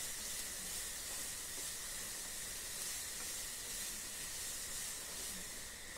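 Sliced onions sautéing in hot coconut oil in a non-stick pan, a steady quiet sizzle as they soften.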